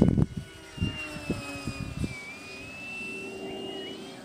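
RC model plane's motor and propeller heard in flight: a thin high whine that dips in pitch about two seconds in, then rises again as the plane passes. Wind buffets the microphone at the start.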